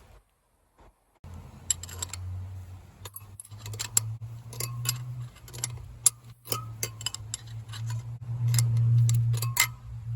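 Irregular sharp clicks and metallic taps from work on a motorcycle wheel during a front tyre change, over a steady low hum that starts about a second in.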